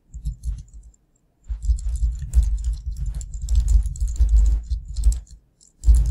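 Fast typing on a computer keyboard: a close run of key clicks, with a short break about a second in and another near the end.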